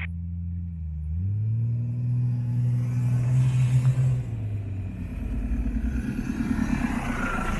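Off-road 4x4 vehicles driving slowly past one after another on a dirt track, engines running. One engine rises in pitch about a second in as it pulls away, and a rougher, lower engine rumble takes over from about five seconds in.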